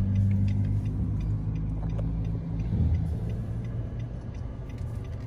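Low steady hum of a car's engine and road noise inside the cabin while moving slowly, with the turn signal ticking faintly and regularly, two or three ticks a second.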